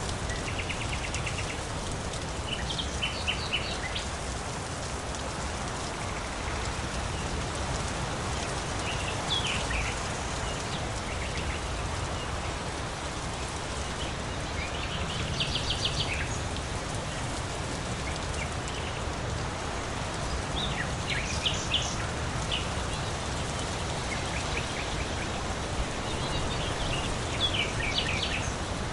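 Steady rain falling, with a bird calling every five or six seconds in short bursts of quick, high notes.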